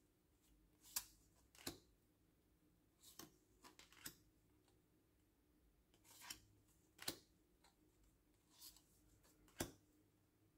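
Large, stiff playing-card-style oracle cards being flipped through by hand: about nine short, soft clicks and snaps, irregularly spaced, as cards slide off the stack against one another.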